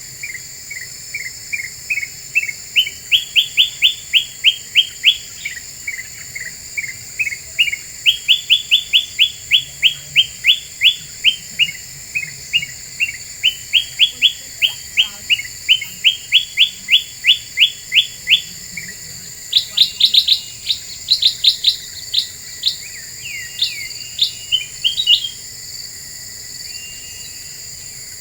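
Kutilang emas bulbul calling: long runs of quick, clear repeated notes, about five a second, in phrases that rise and fall in pitch. About two-thirds of the way through it breaks into a louder, faster, higher flurry that stops a few seconds before the end. A steady high insect drone runs underneath.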